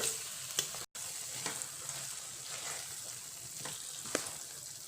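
Onion-tomato masala sizzling in a kadai as mashed roasted eggplant goes in, with a few sharp clicks of a cooking utensil against the pan. The sound cuts out briefly about a second in.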